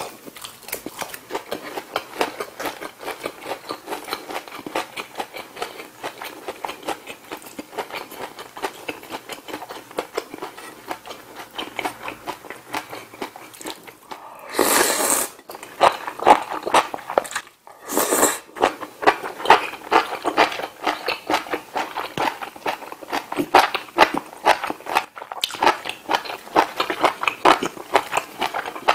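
Close-miked chewing of food, with a dense, steady run of small wet mouth clicks. About halfway, two loud slurps of ramen noodles from kimchi stew come a few seconds apart.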